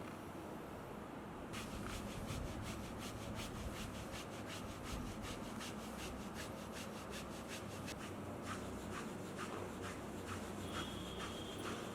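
A therapist's hands rubbing briskly over a patient's skin or clothing in regular strokes, about three a second. The strokes begin after about a second and a half and slow to about two a second near the end.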